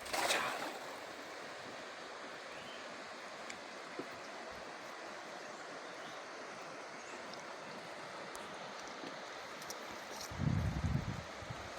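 River water rushing steadily. There is a short splash right at the start, and a brief low rumble on the microphone about ten seconds in.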